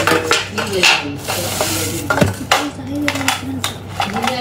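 Paper stickers being peeled off a sand-art picture sheet, a run of quick crackling and rustling scrapes as the backing comes away from the adhesive underneath.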